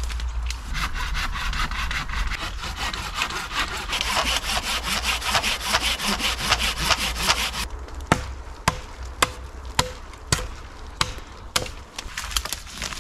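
Japanese pull-saw cutting through a green sapling in quick, rasping strokes that stop about two-thirds of the way in. Then come about seven sharp hatchet knocks on wood, roughly two a second.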